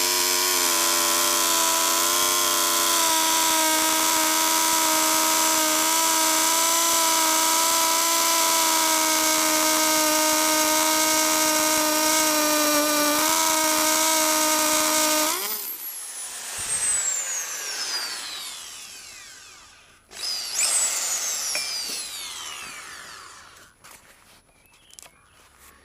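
Power drill in hammer mode boring into a stripped axle bolt on an inline skate frame. It runs at a steady whine for about fifteen seconds, then is released and winds down with a falling pitch. About twenty seconds in it gets a short second burst that winds down again.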